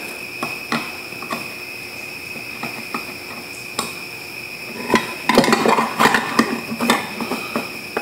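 Screwdriver working screws on a metal electrical box and its outlet cover, giving small scattered metallic clicks and ticks. About five seconds in there is a louder burst of metal clattering and rattling as the box and cover are handled.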